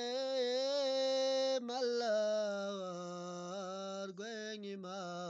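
A solo voice singing an Urdu naat, a devotional song in praise of the Prophet, in long drawn-out notes that waver in pitch, with a short break about a second and a half in.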